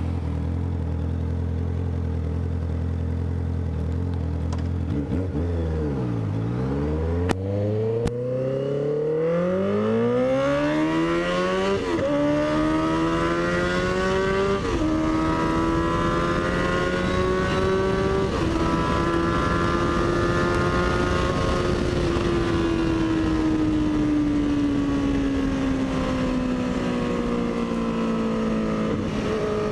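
Honda CB650F inline-four motorcycle engine riding: the engine note drops about five seconds in, then climbs through the gears with shifts at about twelve and fifteen seconds, holds near steady, and eases off slowly near the end. A single sharp click about seven seconds in.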